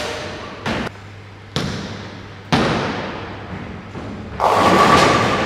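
Bowling alley impacts: heavy thuds of bowling balls and pins echoing through the hall, three sharp ones in the first half, then a longer, louder stretch of noise near the end.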